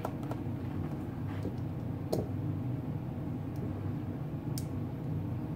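Steady low background hum of room tone, with a few faint soft clicks.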